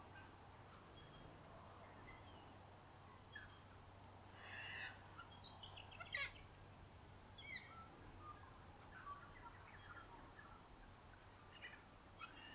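Faint bush ambience of wild birds: scattered short chirps and whistled calls, the loudest a sharp call about six seconds in, over a low steady hum.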